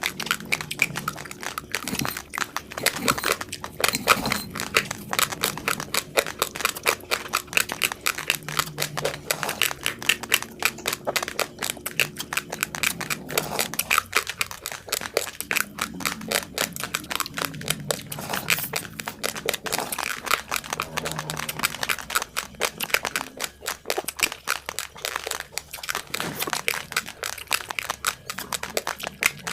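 Raw basmati rice being chewed close to the microphone: a dense, continuous run of sharp, crackly crunches as the hard grains break between the teeth.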